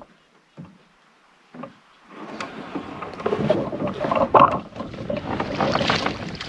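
Water splashing and sloshing beside a canoe, with scattered knocks and clicks, as a caught smallmouth bass is held in the water. It starts about two seconds in after a near-silent moment and is loudest a little past the middle.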